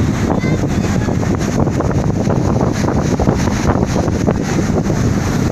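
Strong wind buffeting the microphone aboard a boat under way, a steady loud rush with uneven gusting thumps.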